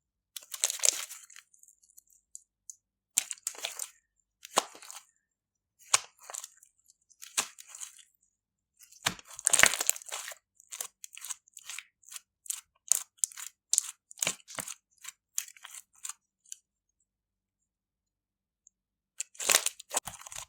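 Slime being squeezed and pressed by hand, making short crackling, squishing bursts with silent gaps between them, and a longer pause near the end.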